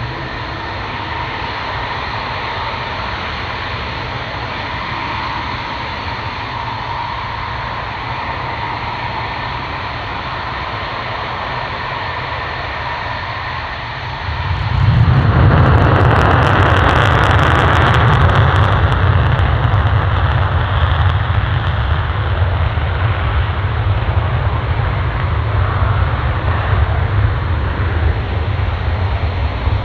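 F-16CM fighter jet engine running with a steady whine, then about halfway through it turns suddenly much louder, with a deep rumble and crackle, as the jet goes to full afterburner for take-off.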